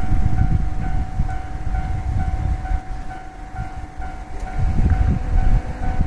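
Japanese railway level-crossing warning bell ringing in a steady, rapid repeating clang, a little over two strikes a second, over a low, gusty rumble.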